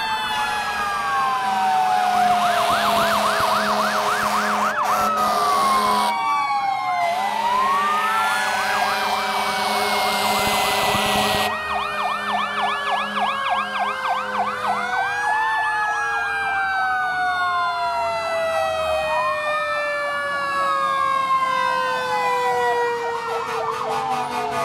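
Several fire-truck sirens sounding together as a column of fire engines passes, overlapping each other. Wails rise and fall, some switch to a fast yelp, and one long tone falls slowly throughout.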